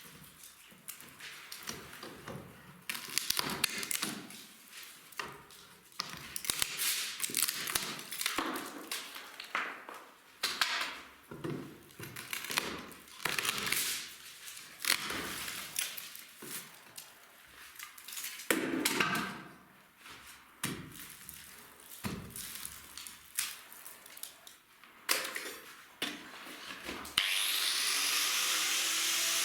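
Irregular knocking, scraping and crumbling of tools working on wood and debris, like old boards being broken out by hand. About 27 seconds in a power tool starts and runs steadily.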